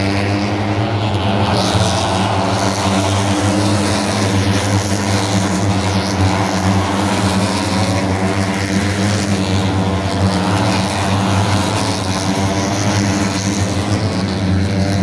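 Steady engine drone with a constant low hum and a wavering pitch, holding at one loudness throughout.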